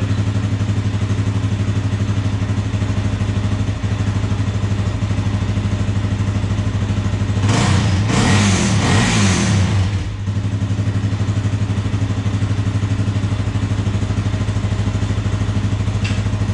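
Suzuki 400 ATV's single-cylinder four-stroke engine idling steadily, revved up briefly about seven and a half seconds in, then dropping back to idle.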